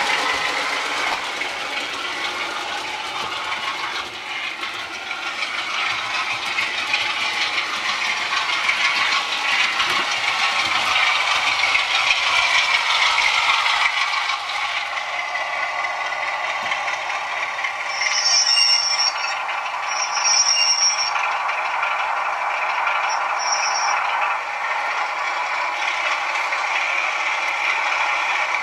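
Model train wheels rattling and clattering over the track of an OO-gauge layout, mixed with the recorded Class 33 diesel engine sound from a South West Digital sound decoder playing through the model's small speaker. A few brief high-pitched squeaks come about two-thirds of the way through.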